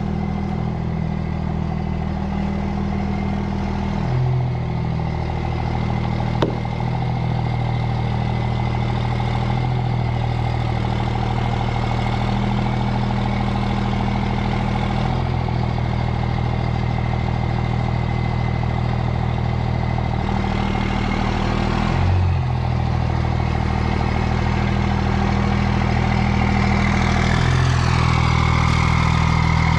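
An engine running steadily at idle, its pitch stepping up or down a few times, with one sharp click about six and a half seconds in.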